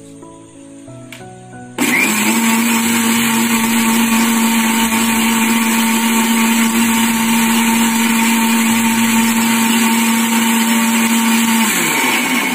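Electric mixer grinder (mixie) motor switching on about two seconds in and running steadily, whipping egg, garlic and oil into mayonnaise as the last of the oil is emulsified. Near the end it is switched off and its pitch drops as it winds down.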